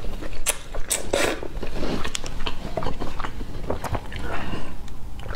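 Close-miked eating sounds: noodles slurped and chewed, with many small sharp mouth clicks and smacks. About four seconds in, a swallow of drink from a plastic bottle.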